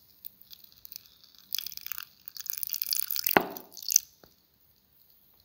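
Milk poured in a thin stream into a steel grinder jar onto peeled bananas: a hissing, splashing trickle, with a sharp knock about three and a half seconds in.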